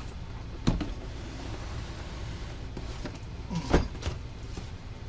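Packaging and parts being handled during an unboxing: two short knocks, the second louder, over a low steady hum.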